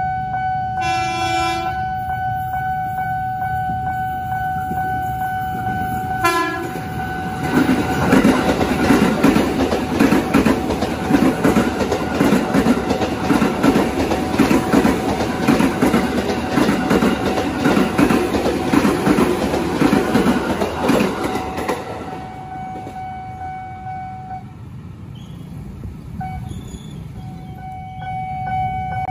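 KRL Commuter Line JR 205 series electric train sounding two short horn blasts, one about a second in and one about six seconds in. It then passes close by with loud wheel-on-rail clatter for about fifteen seconds before fading. Behind it a level-crossing warning signal gives a steady tone that cuts out briefly near the end.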